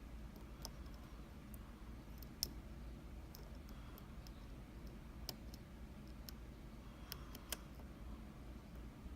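Scattered small, sharp metallic clicks of a dimple-lock pick and tension tool working the pins in the keyway of an Anzbe HS7 dimple lock, about half a dozen, the loudest about two and a half seconds in.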